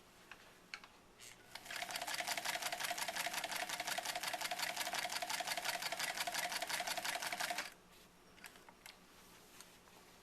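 Singer 306W swing-needle sewing machine sewing a test seam at maximum stitch length: rapid, even clicking of the needle mechanism over a steady motor tone. It starts about a second and a half in and stops about two seconds before the end, with a few light clicks after.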